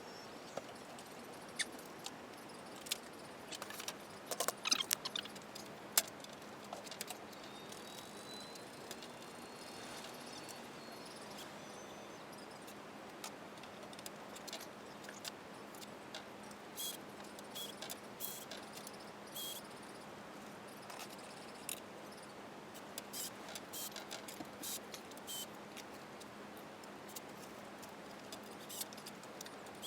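Scattered light clicks, taps and small metallic clinks of hand work on the parts, some clustered in quick runs, over a faint steady hum.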